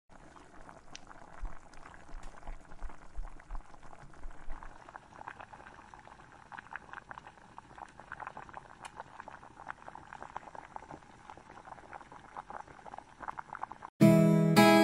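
Glazed mushrooms bubbling and sizzling in a frying pan: a steady crackle of many small pops. Near the end a much louder strummed acoustic guitar tune starts abruptly.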